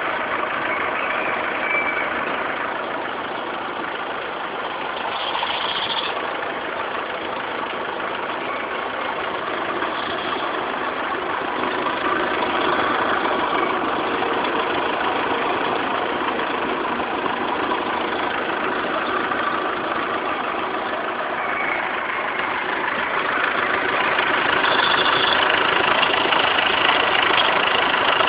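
Renault Laguna 1.9 dCi four-cylinder turbodiesel engine idling, with a short high chirp now and then. This is the weird chirp the owner is asking about.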